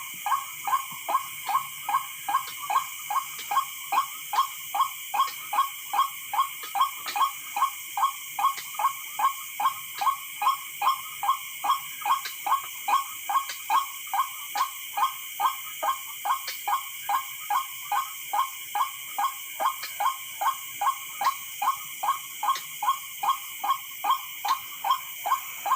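White-breasted waterhen calls, a pitched call repeated evenly about twice a second without a break, used as a lure to draw the bird out. A steady high-pitched drone runs underneath.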